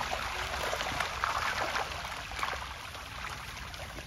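Many fish splashing at the surface of a pond, a dense crackle of small splashes that eases off somewhat after about two seconds.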